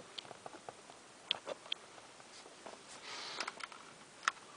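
Scattered faint clicks and a brief rustle from a vintage Sunbeam electric alarm clock being handled, its setting knobs worked by hand.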